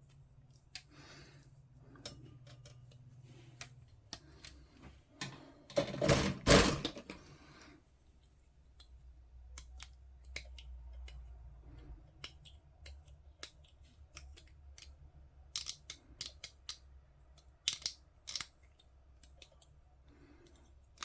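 Small plastic clicks and rattles as a plastic model kit sprue and its parts are handled, with a louder scraping rattle about six seconds in. A run of sharp clicks near the end, from a part being snipped off the sprue with hobby clippers.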